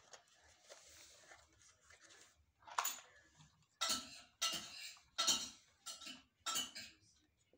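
Hard plastic vacuum-cleaner motor housing clattering and knocking against the motor and body as it is handled and fitted into place. A soft rustle is followed from about three seconds in by a string of about seven sharp knocks.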